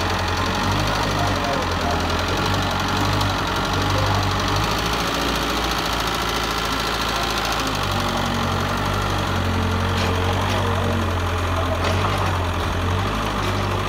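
Mitsubishi excavator's diesel engine running steadily as it works, its low hum rising and easing slightly with the load. A couple of brief clicks come near the end.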